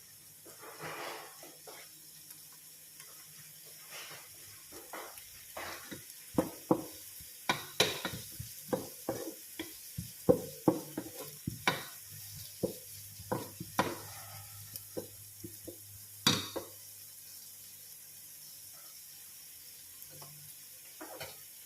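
A utensil stirring food in a frying pan: a quick run of clicks, scrapes and knocks against the pan through the middle, louder in spots and then easing off, over a faint sizzle of frying.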